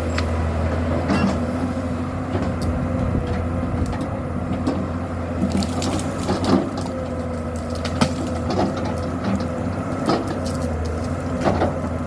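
Komatsu PC200-7 excavator's diesel engine running steadily under load, with scattered sharp cracks and knocks as wood and brush are broken during land clearing.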